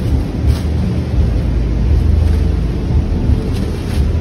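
Steady low rumble, with a plastic bag rustling briefly about half a second in and again near the end.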